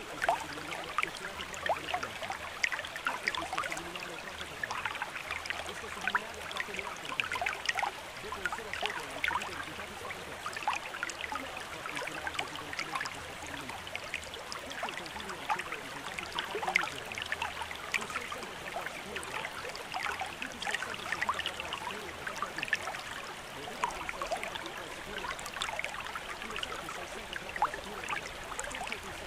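Running water trickling and babbling steadily, a dense patter of small splashes with no break.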